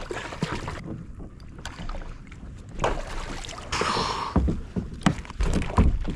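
Water sloshing and splashing around a fishing kayak, with irregular knocks and low thumps against the hull, and a short burst of splashing about four seconds in.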